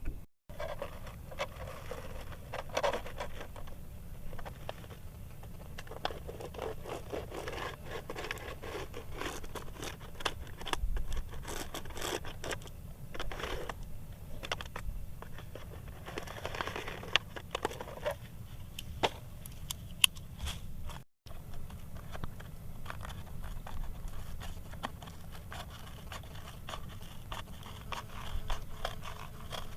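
Irregular scraping and scratching from handwork, with many small clicks and taps that come and go.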